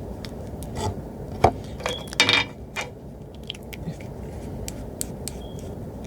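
Scattered small clicks, taps and short scrapes from handling a small plastic hair oil sample bottle, with one longer scrape about two seconds in.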